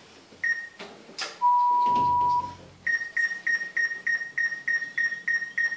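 Electronic beeps from a mental-arithmetic flash-number program playing on a TV. There is one short high beep, then a lower steady tone lasting about a second, then a quick run of about ten short high beeps, roughly three a second.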